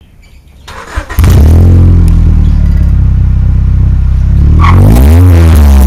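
Honda Accord exhaust through an eBay N1 catback with its silencer insert fitted: the engine fires up about a second in and idles with a loud, low, steady drone, then is revved up and down near the end.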